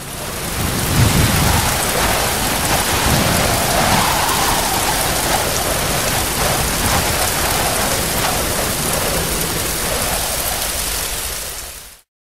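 Water boiling in a tin can over a Sigma alcohol stove. A steady, dense bubbling noise with a low rumble, cutting off suddenly near the end.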